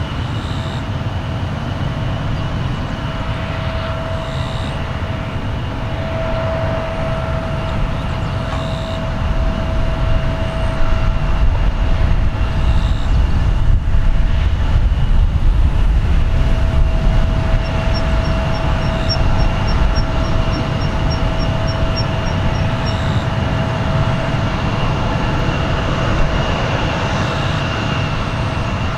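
Distant Boeing 737-800's CFM56 turbofan engines running steadily while the jet holds on the runway: a steady whine over a low rumble, swelling for a while in the middle.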